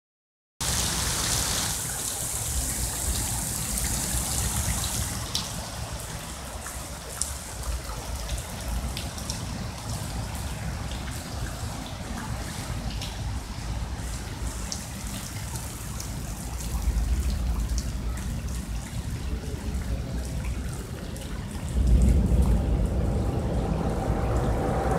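Rain falling on a lake's surface: a hiss, strongest in the first few seconds, with scattered ticks of drops hitting the water. Under it, a low rumble of wind on the microphone that grows louder near the end.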